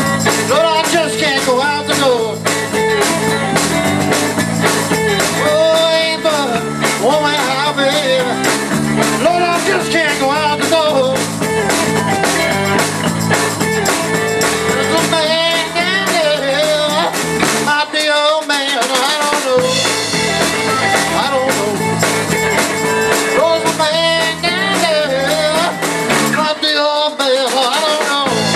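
Live blues-rock band playing an instrumental stretch, with the electric guitar leading and bending notes over bass guitar, drum kit and keyboards. The bass drops out briefly twice, about two-thirds of the way in and again near the end.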